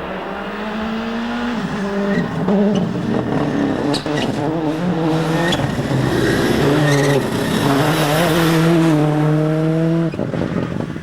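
Toyota Corolla WRC rally car's turbocharged 3S-GTE four-cylinder engine revving hard at full attack, its pitch climbing and stepping with gear changes as the car passes. A few sharp cracks stand out, and the sound swells to its loudest a little past the middle before the engine note drops near the end.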